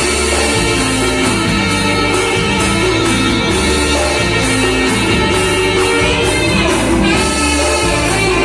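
Live band music with a singer over a steady beat and bass line.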